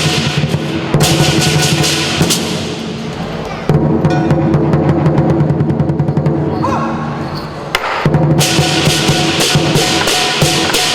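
Southern lion dance percussion band playing: a big drum beating under fast, loud cymbal clashes and a ringing gong. The cymbals drop away a few seconds in, leaving the drum with lighter strokes, and come crashing back in near the end.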